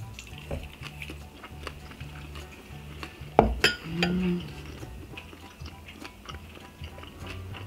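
Background music with a steady low bass line under small clicks of chopsticks and tableware. About three and a half seconds in, a sharp knock as a small ceramic bowl is set down on the wooden table, followed by a short closed-mouth "mm" while chewing.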